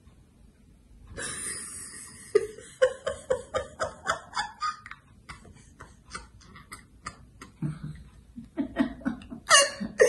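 An elderly woman laughing quietly: breathy giggles in short bursts of a few a second, starting about a second in.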